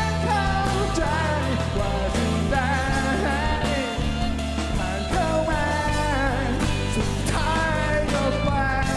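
Rock band playing: a man singing over electric and acoustic guitars, bass and drums.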